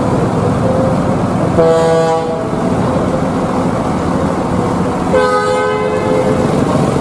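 A vehicle horn sounds twice, a short blast about a second and a half in and a longer one about five seconds in, each several pitches held together, over the steady running of bus engines and traffic.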